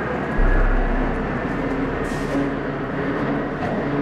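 Steady hum of the Heim lift bridge's lift machinery running, with several held tones. A low buffet of wind on the microphone comes about half a second in.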